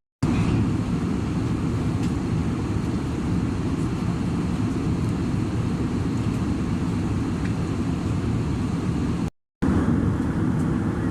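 Steady low rumble of airflow and engines inside an Airbus A320 passenger cabin in flight, with a brief dropout near the end.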